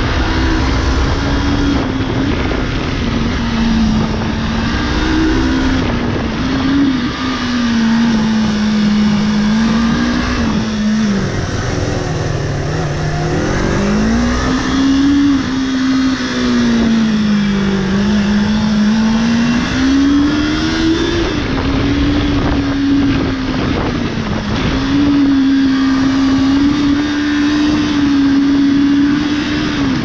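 Motorcycle engine running under a changing throttle on a winding road, its note rising and falling, dropping lowest about twelve seconds in and climbing again. Wind and road noise run underneath.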